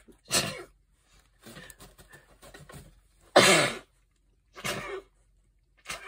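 A woman sneezing several times in a fit, the loudest sneeze about three and a half seconds in, with quick breaths between.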